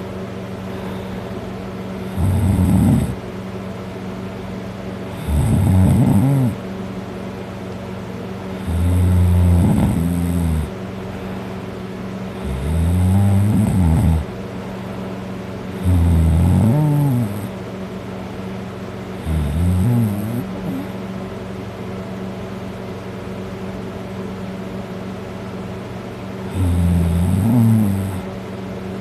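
A person snoring loudly while passed out drunk on their back. There are seven long snores, one every three to four seconds, then a longer pause before the last, all over a steady low hum.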